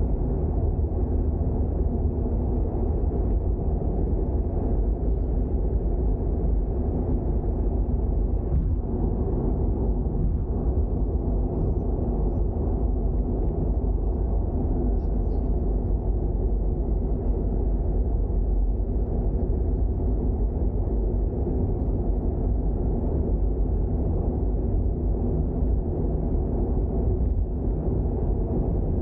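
Toyota GR86 driving at a steady pace: a steady low rumble of engine and road noise, unchanging throughout.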